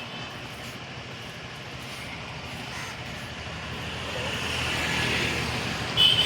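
Outdoor traffic noise: a motor vehicle engine drawing steadily closer and louder over the second half, with a sudden brief high-pitched sound near the end.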